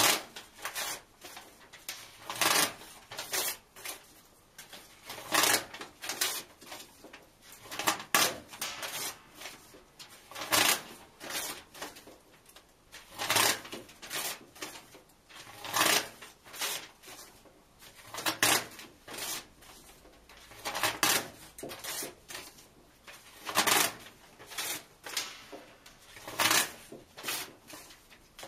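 Paper tearing: pages ripped one by one from a book and torn in half, with a loud rip about every two and a half seconds and softer rustling between.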